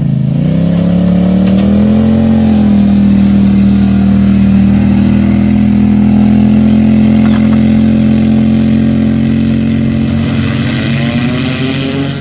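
Engine of a homemade flying cart revving up and running at steady high speed, its pitch rising again near the end.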